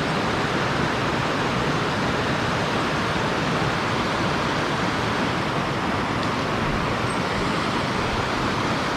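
Steady, even rush of fast-flowing river water pouring over a waterfall.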